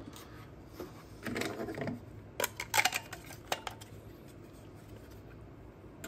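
Hard plastic parts of a DeLonghi brew group rubbing and clicking as it is handled: a short scrape about a second in, then several sharp clicks over the next second or so.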